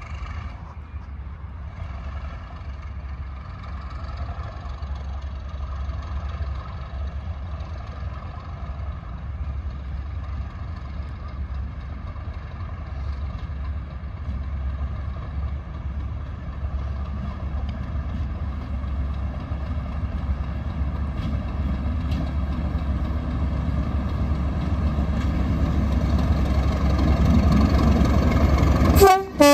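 English Electric V12 diesel engine of a Class 37 locomotive hauling a train, its steady engine note growing gradually louder as it approaches, ending in a short blast of the locomotive's horn.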